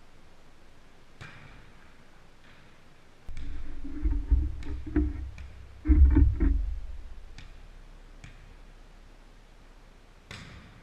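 Low thumps and rumbling of camera handling noise for a few seconds in the middle as the camera is moved, after a few light taps of a volleyball. Near the end, a single sharp smack of a volleyball being struck on a jump serve.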